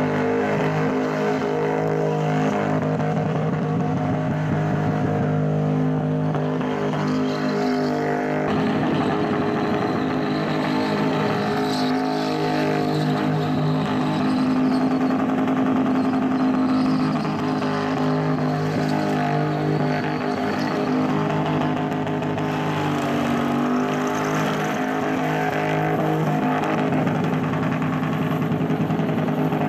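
Holden Commodore ute's engine held at steady revs through a smoky burnout, its wheels spinning, with the pitch shifting a couple of times as the throttle is changed.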